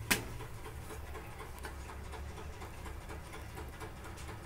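A single sharp tap against the iron tawa just after the start as the paratha is flipped, then a faint steady low hum with light, irregular crackling from the paratha cooking on the hot tawa.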